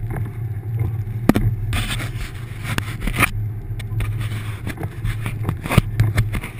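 1999 Subaru Forester's flat-four engine running steadily as the car drives through deep snow, with scattered sharp knocks and rattles. About two seconds in there is a stretch of louder scraping, rushing noise that lasts about a second and a half.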